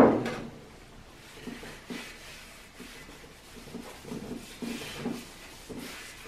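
A can of thinner set down with a sharp clunk at the very start, then a rag wiped in repeated strokes over the truck-wheel rim, a soft, uneven rubbing.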